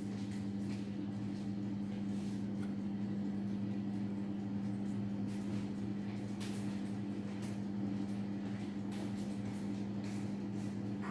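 Steady low machine hum, with faint scattered clicks and light taps over it.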